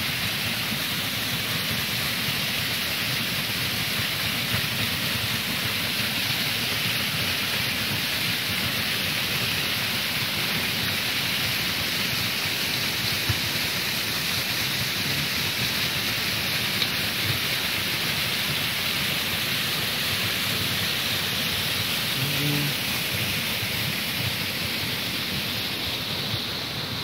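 Small mountain waterfall rushing and splashing onto rocks: a steady, dense water noise that eases slightly near the end.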